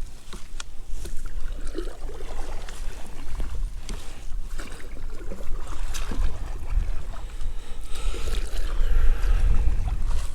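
Strong wind buffeting the microphone on a kayak, with water slapping against the hull and scattered clicks and knocks of gear; the wind rumble swells near the end.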